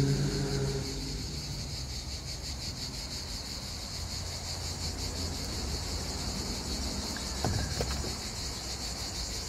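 Insects chirping steadily in a high, rapidly pulsing band over a low outdoor rumble. A low, steady drone fades away in the first second.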